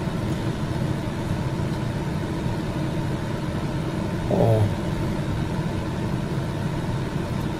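Steady low rumbling hum, like a running appliance, with a brief short vocal sound about four and a half seconds in.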